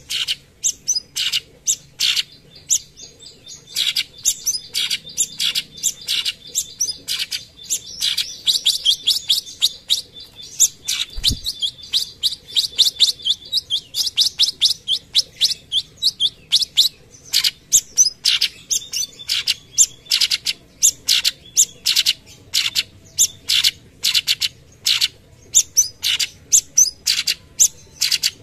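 Cucak cungkok (orange-bellied leafbird) singing a fast, unbroken run of short sharp chirps and whistles, several notes a second: the rapid 'tembakan' volleys of a bird in full song.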